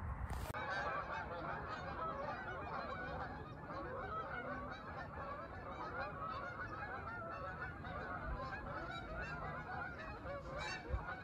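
A large flock of Canada geese honking: many overlapping calls at once, continuous and at some distance.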